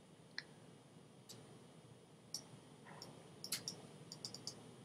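A series of faint, irregular computer mouse clicks, about eight in all and coming closer together after the middle, over a quiet room hiss.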